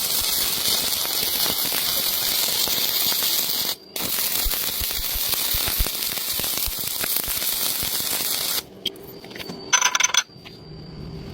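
Stick-welding arc crackling steadily, breaking off for a moment about four seconds in and stopping about eight and a half seconds in. A short ringing sound follows near ten seconds.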